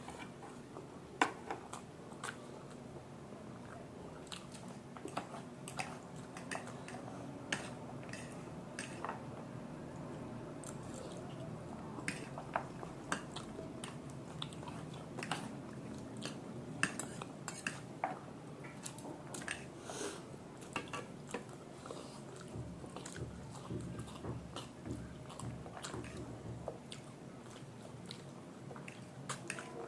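Close-up chewing and biting of chow mein and momos, with scattered small clicks and taps of cutlery on a plate throughout.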